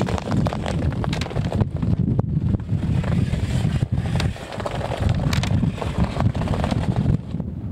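Heavy wind buffeting the microphone of a camera carried by a fast-moving kitewing ice skater, with the hiss and scrape of skate blades on natural ice.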